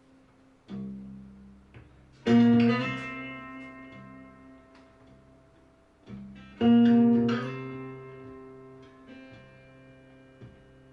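Guitar intro of a recorded blues song played through AR-3a loudspeakers driven by a Mark Levinson ML-2L amplifier. A soft chord comes about a second in, then two loud chords about two and six and a half seconds in, each left to ring and fade, with a few lighter notes between them.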